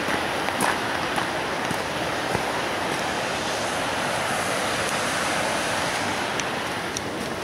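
Steady rush of fast-flowing water from river rapids, with a few faint clicks.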